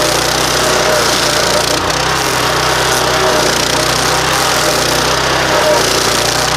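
A 15 hp stump grinder's petrol engine running steadily under throttle while its toothed cutting wheel chews into an old pine stump, a constant loud mechanical noise.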